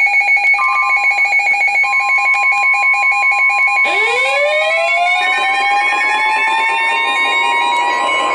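Emergency alert tones: a rapidly pulsing electronic alarm, joined by a steady tone about two seconds in. About four seconds in, a warning siren winds up from a low pitch to a high one and holds there.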